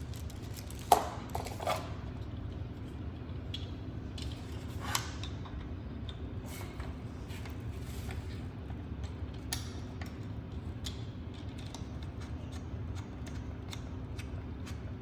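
Scattered clicks and light knocks from the parts of a ring light and phone tripod being handled and fitted together, the sharpest about a second in, over a steady low room hum.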